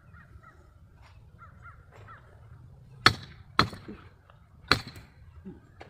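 Three sharp knocks on a scored brick, about half a second and then a second apart, as it is struck to snap it along the groove cut by the angle grinder. A bird calls faintly in the background.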